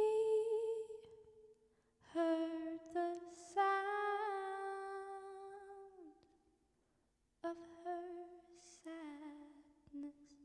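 A woman singing wordless phrases with no accompaniment: three phrases of long held notes with slight vibrato, separated by short pauses. The middle, longest phrase falls off in pitch at its end.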